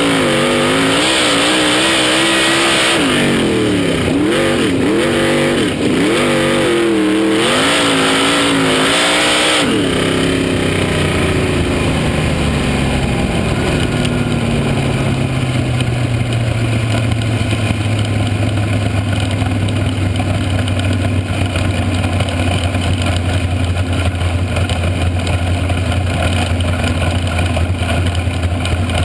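Dirt-track race car's engine heard onboard, revving up and down through the turns for the first ten seconds or so. It then drops suddenly off throttle and settles to a low, steady idle as the car slows after its hot laps.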